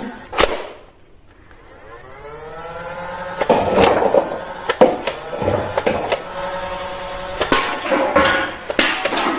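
A battery-powered toy gun's motor spinning up with a rising whine and then running steadily, with several sharp clicks from its mechanism.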